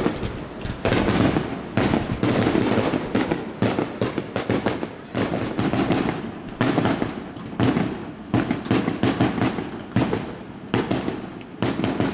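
Fireworks going off in rapid succession: a steady barrage of booms and sharp cracks, some in quick crackling clusters, over continuous rumble.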